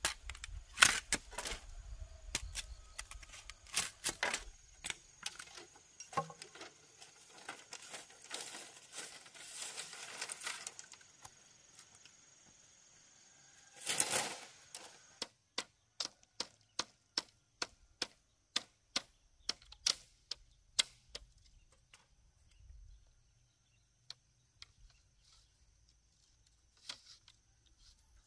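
Bamboo being worked with a machete: scattered sharp knocks and clatter of split bamboo strips being cut and handled, a stretch of rustling, a louder clatter about halfway, then a run of evenly spaced strikes about two a second. A faint steady high tone lies underneath.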